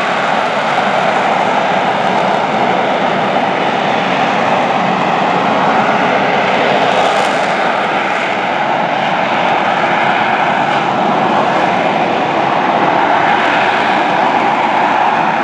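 McDonnell Douglas AV-8B Harrier II's Rolls-Royce Pegasus vectored-thrust turbofan running at high power through a hover, a loud, steady jet noise.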